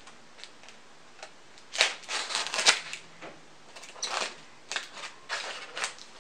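A knife slitting packing tape on packaging, in a series of short, sharp cutting strokes. The loudest strokes come about two seconds in, with a few fainter ones after, and light clicks before them.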